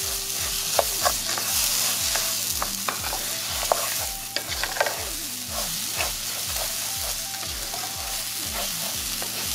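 Long-grain rice, chopped onion and garlic sizzling in hot oil in a pan, stirred and scraped with a wooden spoon. Irregular clicks and scrapes sound over a steady sizzle.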